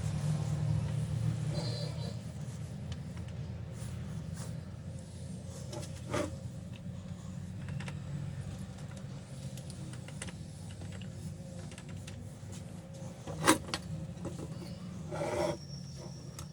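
A steady low mechanical drone with a few sharp clicks and knocks, the loudest about three seconds before the end.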